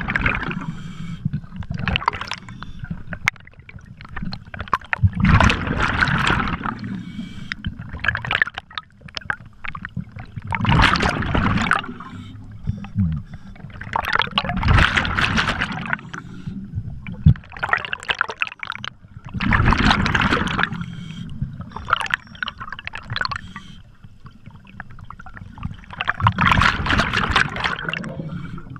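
Scuba diver breathing through a regulator underwater: a bubbling rush of exhaled bubbles about every five seconds, each lasting a second or two, with quieter stretches between breaths.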